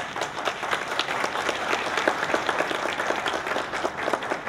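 Audience applauding, many hands clapping at once in a dense, irregular patter.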